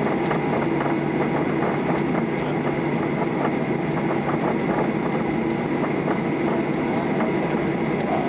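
Cabin noise inside a Boeing 737-800 taxiing: its CFM56 engines running at low thrust over the steady rumble of the wheels on the taxiway, with faint irregular clicks and knocks.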